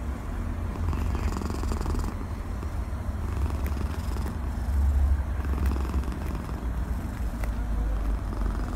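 Domestic cat purring softly and continuously, a steady low rumble.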